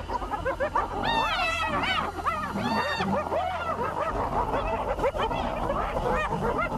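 A clan of spotted hyenas calling in a fight over a kill: many overlapping, arching squeals and yelps, thickest about a second in and again around three seconds.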